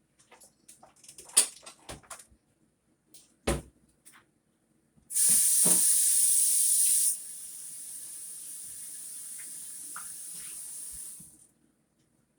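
A few knocks of dishes being handled, then a kitchen tap running onto a plate to rinse it. The water is loud for about two seconds, then runs more quietly and stops shortly before the end.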